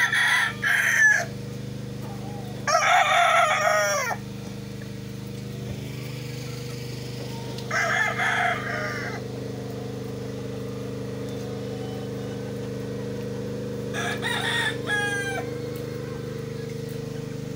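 Penned game roosters crowing: four crows of a second or so each, several seconds apart. A steady low hum runs underneath.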